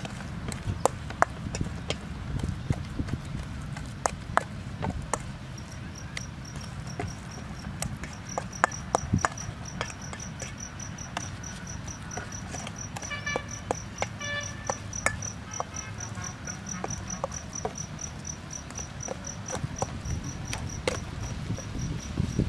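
Metal spoon clinking and scraping in a stainless steel bowl as raw minced meat is mixed, in irregular short knocks. An insect chirps steadily in a high pulsed trill, about four chirps a second, starting about five seconds in.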